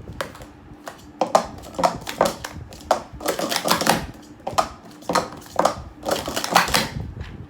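Plastic sport-stacking cups clattering as they are stacked up and down at speed, in several quick flurries of rapid clicks.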